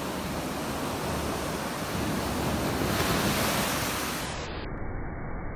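Ocean surf: small waves breaking and washing up a sandy beach as foam, a steady wash that swells louder around the middle as a wave runs in.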